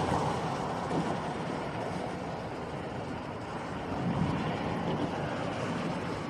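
Thunder rumbling on over a steady hiss of heavy rain, the low rumble swelling again about four seconds in.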